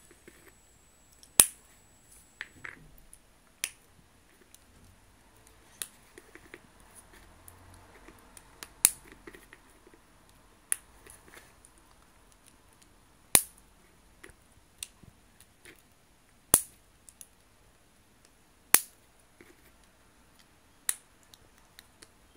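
Small plastic LaQ building pieces, blue triangles and green joints, snapping together. There are about nine sharp clicks at uneven gaps of two to three seconds, with faint rustling of the pieces being handled between them.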